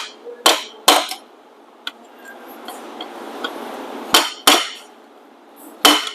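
Hand hammer striking metal while a seized car starter is being freed: about six sharp, ringing blows. They come in clusters near the start, around four seconds in and near the end, with a pause of about three seconds between.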